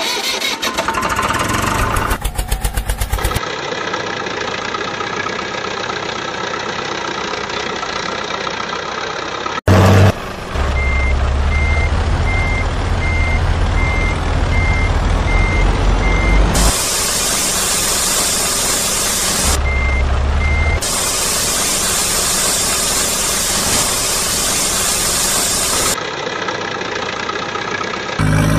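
Added sound effect of a heavy truck's engine running, cut together in abrupt segments, with a steady high reversing beep about two or three times a second from about eleven seconds in to about seventeen, and again briefly around twenty seconds.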